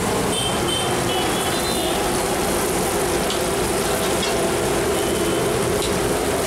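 Mushroom pakodi deep-frying in a large kadai of bubbling oil over a gas burner: a steady sizzle and roar, with a few light metallic clinks of the strainer ladle.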